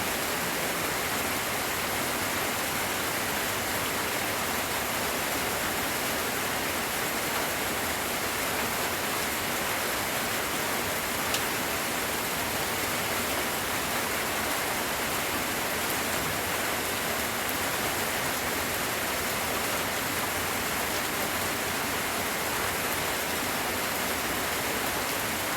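Steady rain falling, an even unbroken hiss, with one faint tick about eleven seconds in.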